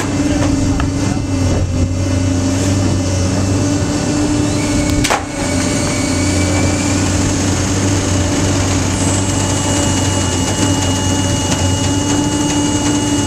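Strong Recycling V500 mill-size baler's hydraulic power pack running with a steady hum, with a single short knock about five seconds in.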